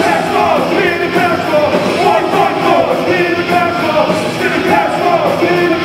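Live rock band playing loud: electric guitars and drums with a lead vocal sung and shouted over them, the audio heavily compressed by the camera's microphone.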